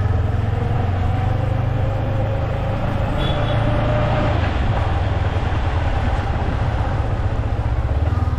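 Yamaha MT-15's single-cylinder engine running steadily, with a fast, even low pulse.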